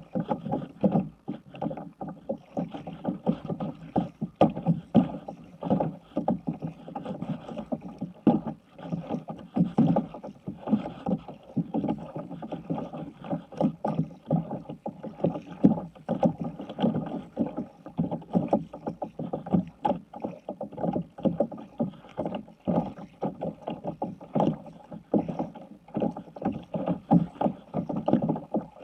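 Water splashing and slapping around a sit-on-top kayak as it is paddled through choppy water: a steady run of irregular splashes and knocks from the paddle strokes and small waves hitting the hull.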